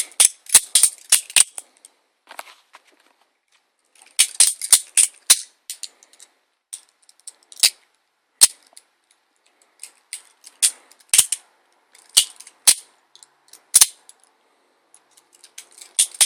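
Pacific Cutlery Imada hollow-grind balisong being flipped: its burgundy micarta handles clack against each other and the blade in quick flurries of clicks at the start and about four seconds in. Then come single clacks every half second to a second, and another flurry near the end.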